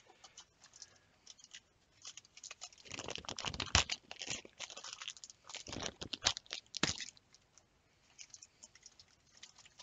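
Plastic model-kit sprues and their packaging being handled: crinkling and rustling with many small plastic clicks, busiest in the middle few seconds.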